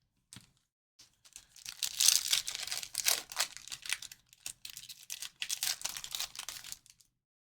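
Foil wrapper of a Fleer Retro basketball trading card pack being torn open and crinkled. It comes as two stretches of crackling, with a short break in the middle.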